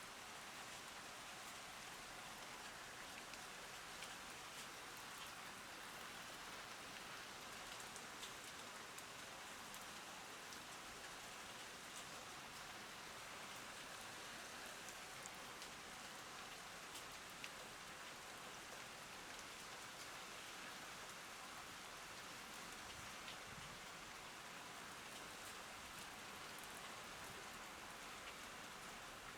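Steady rain falling on plants: an even hiss with many small, sharp drop ticks scattered through it.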